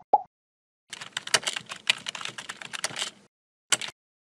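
Keyboard-typing sound effect in an animated intro: two short pitched pops at the start, then about two seconds of rapid key clatter, and one last sharp click near the end.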